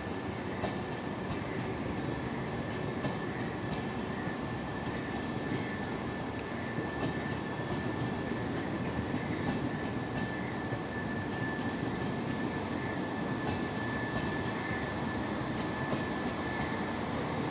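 LHB passenger coaches of an express train rolling past on the track, a steady continuous rumble of wheels and running gear with a thin, steady high-pitched whine above it.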